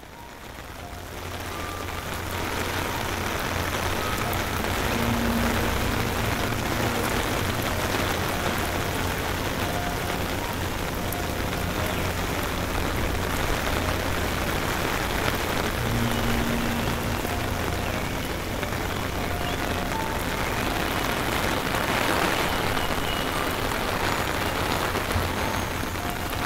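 Steady rain falling and splashing, fading in over the first couple of seconds: rain from the first phase of Hurricane Milton.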